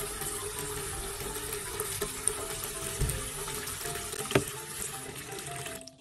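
Kitchen tap running steadily into a plastic basin of water in a stainless steel sink, with a single sharp click about four seconds in.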